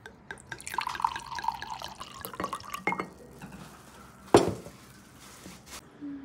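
Small clinks of glassware and tableware with dripping, pouring liquid, and one sharp knock about four seconds in.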